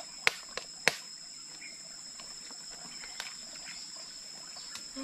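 Insects chirring in a steady high drone, with a few sharp cracks: three in the first second and one about three seconds in.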